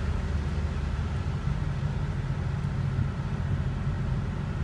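Steady low engine rumble heard from inside a car, with no change in pitch or level.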